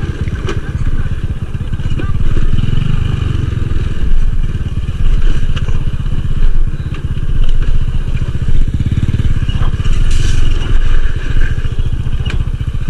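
Small motorcycle engine running while ridden off-road, its rumble swelling and easing with the throttle, with a few sharp knocks and clatter from the rough ground.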